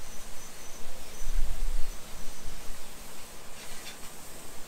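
Steady hiss of a garden hose spray wand rinsing a boat trailer with fresh water, with a low rumble of wind on the microphone about a second and a half in.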